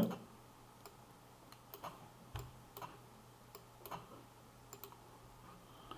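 Computer mouse clicking faintly, about ten short clicks at irregular intervals.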